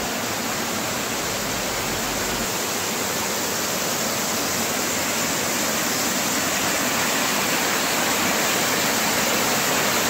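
Small waterfall cascading over rocks: a steady rush of water that grows slightly louder.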